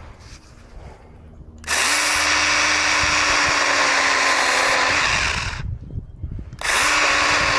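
Stihl GTA26 battery-powered mini chainsaw running and cutting through a thicker branch. It spins up about two seconds in and runs steadily for about four seconds, stops for about a second, then starts again near the end.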